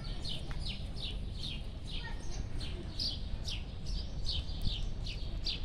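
A small bird chirping over and over: short, high, falling notes about three a second, over a steady low background hum.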